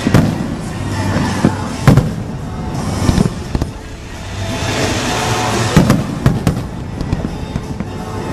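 Fireworks exploding in a run of sharp bangs every second or so, with crackling bursts, over music playing.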